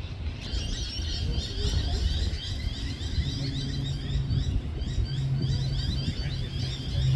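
Birds chirping rapidly and repeatedly over a low rumble; a steady low engine-like hum joins about three seconds in.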